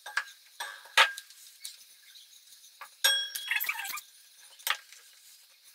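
Wooden rolling pin knocking on a table as dough is rolled out: a few sharp knocks, the loudest about a second in, then a ringing clink and rattle about three seconds in lasting about a second.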